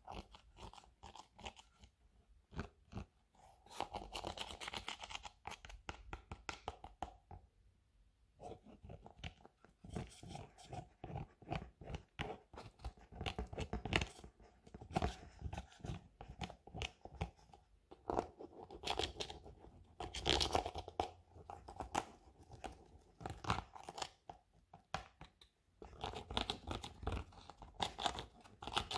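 Pressed makeup powders (blush, bronzer and highlighter) being crushed and scraped in their pans with a pointed metal tool. It makes a dense run of small crunches and scratches, with a short lull about eight seconds in.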